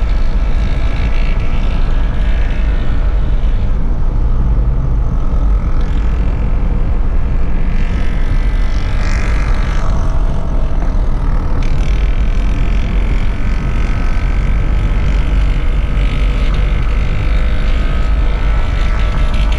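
Car driving at speed, heard inside the cabin: a steady, heavy low rumble of road and engine noise, with a faint droning whine whose pitch wavers a little.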